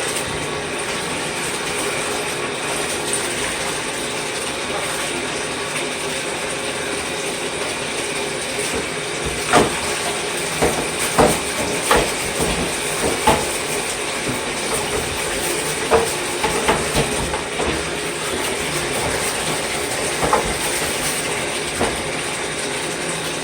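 Steady hiss of running water as Shark vacuum parts are rinsed, with a run of sharp plastic knocks and clatters from about ten seconds in as the parts are handled.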